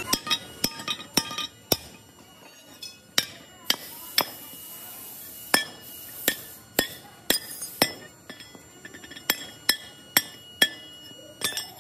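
Hand hammer striking a steel ring plate laid on an iron block: irregular sharp metallic clinks, each ringing briefly.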